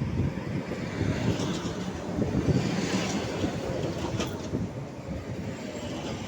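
ET2 electric multiple unit running past on the rails: a loud, steady rumble of wheels and carriages with a few sharp clicks from the rail joints, peaking a couple of seconds in and then easing slightly.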